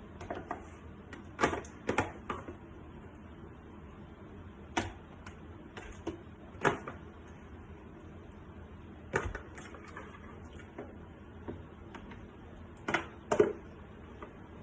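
Irregular knocks and clinks of kitchenware as more watermelon is added to a blender jar, about eight sharp hits, some in quick pairs. The blender is not running.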